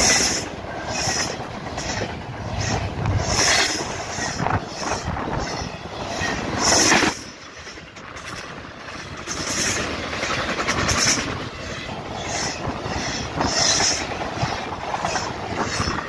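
CSX freight train's cars rolling past, wheels clacking over the rail joints in a repeating rhythm, with brief high screeches from the wheels.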